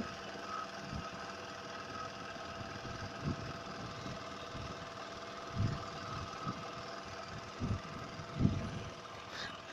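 An engine idling steadily, with a few short low thumps.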